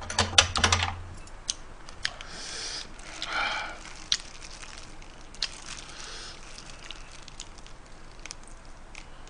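Small clicks and crackles of metal chopsticks and gloved fingers picking apart a cooked blue crab, thickest in the first second, then sparse faint clicks with a soft rustle in between.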